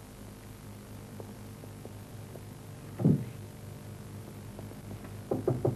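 Steady electrical hum on an old film soundtrack. There is a dull thud about three seconds in and a quick run of three or four knocks near the end.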